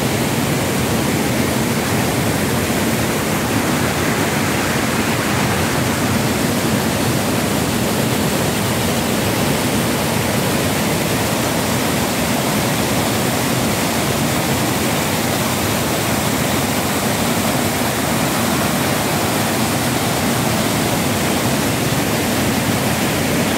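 River water spilling over a stepped stone weir and rushing across the rocks below: a loud, steady rush of falling water.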